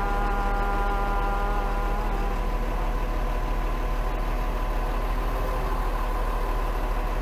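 Truck-mounted crane's engine running steadily at a constant pitch. Over the first two and a half seconds a voice holds one long sung note, the tail of a slow mantra chant.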